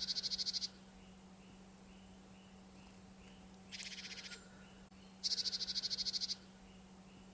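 Small birds calling: three short, rapid, high trills about a second long, near the start, about four seconds in and about five seconds in, over faint short chirps repeated about twice a second.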